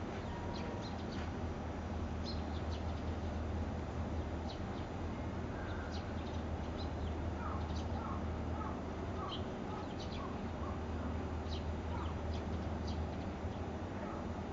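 Small birds chirping in short, high notes scattered throughout, with a run of quick, lower repeated notes in the middle, over a steady low hum.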